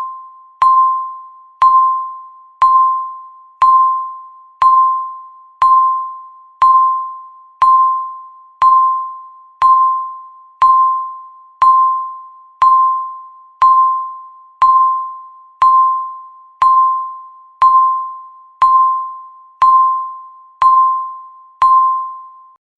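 Electronic countdown-timer beep, a single clear chime-like tone struck once a second that fades away before the next, marking each of the final seconds of the countdown.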